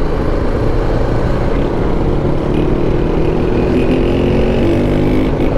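The single-cylinder engine of a BMW G 310 GS motorcycle running steadily while the bike rides through slow city traffic, heard from a camera mounted on the bike.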